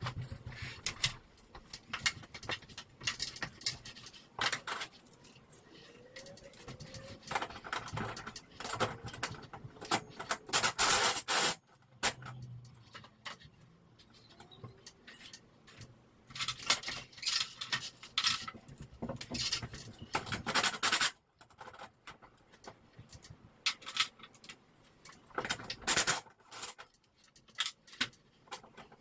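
Irregular metallic clinks, rattles and scrapes of hardware and tools being handled while a garage door opener is installed. There are louder stretches of clatter about ten seconds and twenty seconds in.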